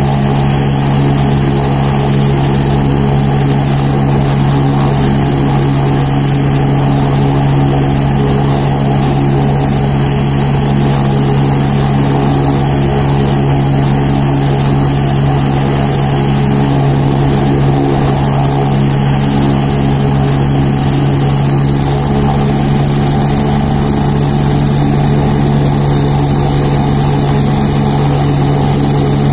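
AgustaWestland helicopter running on the ground before lift-off, its turbine engine and rotor giving a steady low drone with a thin high turbine whine above it.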